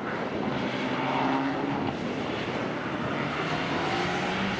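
Mitsubishi Lancer Evolution rally car's engine accelerating hard, its pitch climbing, dropping at a gear change about two seconds in, then climbing again, over the hiss of tyres throwing up spray on the wet track.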